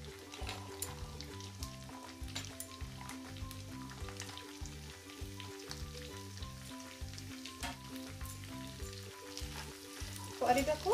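Chopped vegetables (cauliflower, carrots, peas and green beans) sizzling as they fry in hot ghee in a kadai, with scattered pops and crackles. Light background music plays along.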